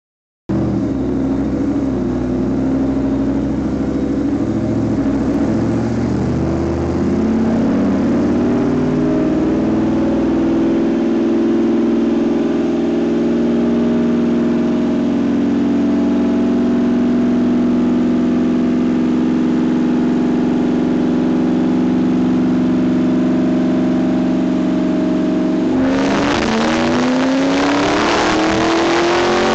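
Ford SVT Lightning pickup's V8, breathing through long-tube headers, a catless 3-inch midpipe and Magnaflow mufflers, pulling on a chassis dyno: the engine note climbs slowly and steadily in pitch under full load. About 26 seconds in the throttle closes and the engine winds down, with a rush of added noise.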